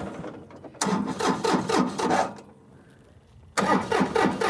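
Tractor engine cranking on its starter without catching, in two tries: a run of quick even chugs for about a second and a half, a short pause, then cranking again near the end. It is a hard start that the engine won't catch on, with flooding raised as a possible cause.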